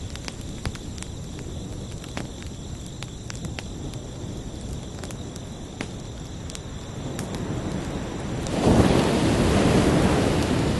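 Ocean surf mixed with a steady chirping of crickets. A wave builds and breaks loudly about eight and a half seconds in, then washes on.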